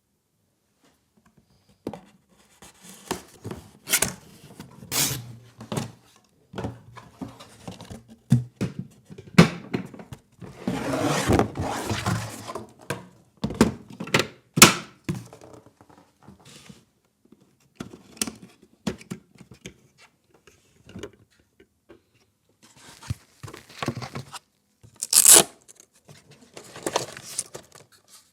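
Box and packaging being handled and opened: scattered knocks and sharp clicks, with a few seconds of rustling about ten seconds in.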